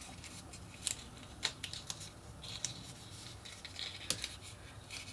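Paper rustling and crinkling as patterned paper with adhesive tape on the back is wrapped around a small chipboard cylinder and pressed down by hand, with a few light clicks, the sharpest about a second and a half in and about four seconds in.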